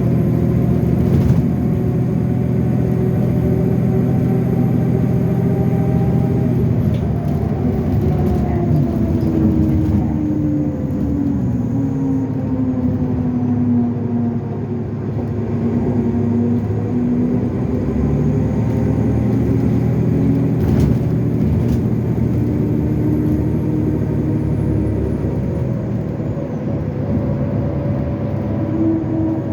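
Cabin sound of a 2015 Nova Bus LFS Artic hybrid bus with a Cummins ISL9 diesel and Allison EP50 hybrid drive. The engine note falls as the bus slows from about 7 s to 15 s, then rises again as it pulls away. A high turbo whine drops away at the start of the slowdown, comes back about 19 s in, and fades again near the end.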